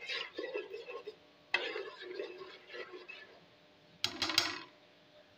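A spoon stirring a wet spice and onion mixture in a cooking pot, scraping and sloshing in uneven strokes, with a few quick knocks against the pot about four seconds in.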